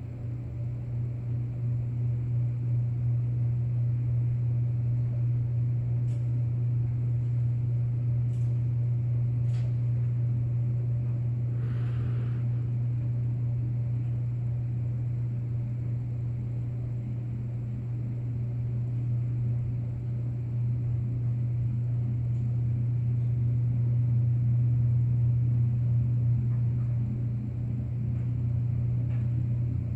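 A steady low droning hum, like a running machine, with a few faint clicks over it.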